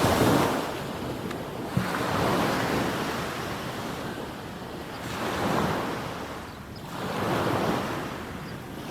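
Small sea waves breaking and washing up a sandy beach, the surf swelling and ebbing about four times.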